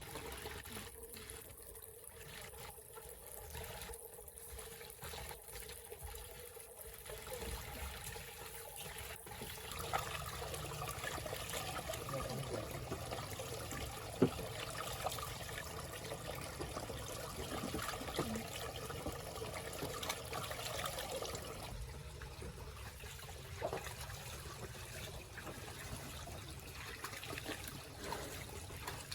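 Water trickling, louder for a stretch in the middle, with one sharp click about halfway through.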